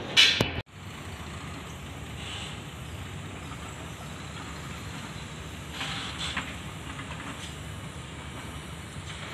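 A short loud burst of noise at the very start, then steady roadside ambience: an even hiss and hum of distant traffic, with a few faint brief higher sounds.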